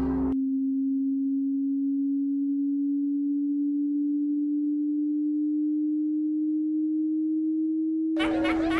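A single pure electronic tone, like a sine-wave drone, held steadily and slowly rising in pitch. The other soundtrack sounds cut out just after the start and return near the end.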